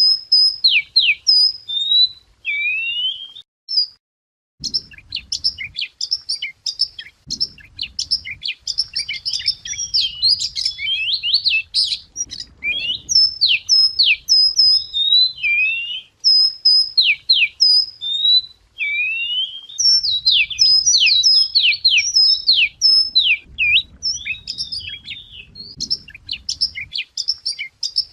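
Wagtail (chìa vôi) singing a fast, varied song of clear whistled notes that slide up and down and loop, repeated phrase after phrase with brief pauses. This is a lure song for calling in the same species. A faint low rumble sits underneath in places.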